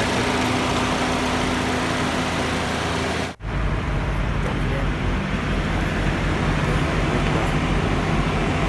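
Toyota Yaris engine running at idle after its throttle body has been cleaned. About three seconds in it cuts off abruptly and comes back as a duller, deeper running sound.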